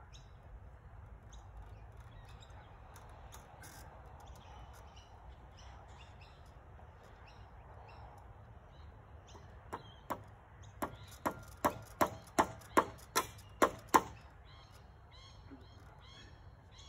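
A hammer drives a nail into a treated-pine roof beam: about a dozen sharp, ringing strikes, roughly two to three a second and growing louder, starting a little past halfway and stopping a few seconds later.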